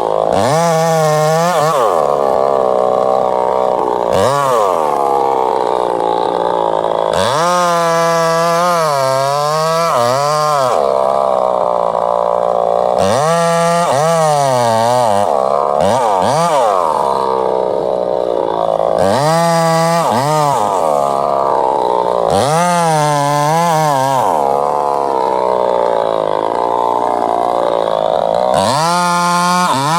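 Two-stroke chainsaw running at high revs, its engine pitch dipping and recovering again and again as the chain bites into the wood and comes free.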